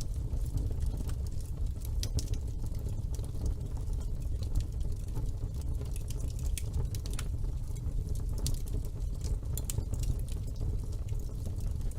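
Wood fire burning in a fireplace: a steady low rumble of the flames with frequent small crackles and pops scattered throughout.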